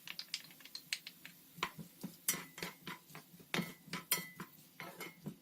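Spoon clinking and scraping against a frying pan in a run of irregular light clicks, as cooked diced quince is worked together with grape molasses.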